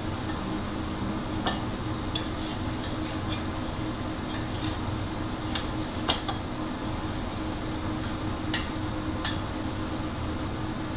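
A knife clinking and scraping against a metal muffin tin as baked pies are prised out onto a wire cooling rack: a scattering of light metallic clinks, the sharpest about six seconds in, over a steady low hum.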